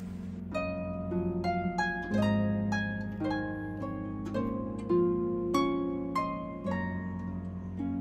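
Harp music: a melody of plucked notes that each ring and fade, played over deep bass notes.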